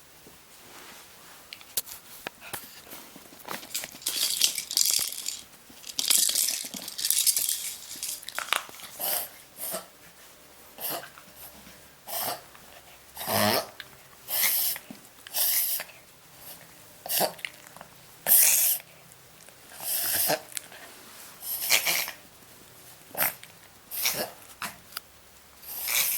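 A Papillon dog reverse sneezing: a long run of short, forceful snorting breaths in through the nose, about one every second, starting a few seconds in.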